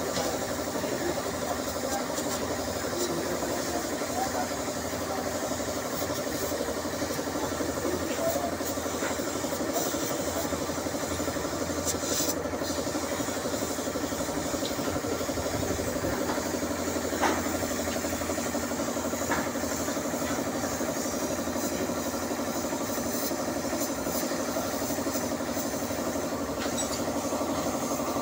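Air compressor running steadily with a fast, even pulse, while a gravity-feed spray gun hisses as it sprays paint onto the car's bumper.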